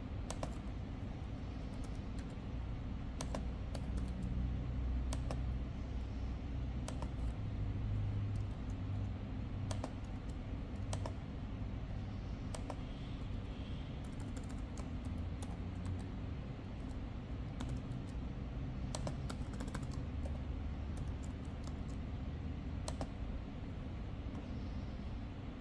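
Laptop keyboard being typed on: scattered, irregular key clicks over a steady low hum.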